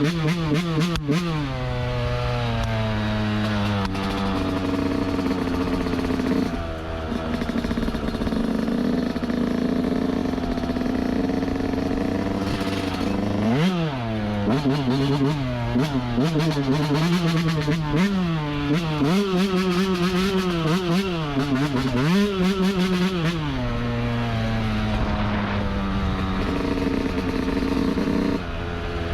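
Yamaha YZ125 single-cylinder two-stroke dirt bike engine under riding, revving up and dropping back again and again as the throttle is worked and gears change. There is a sharp drop and climb in revs about halfway through, then a run of quick rev rises and falls.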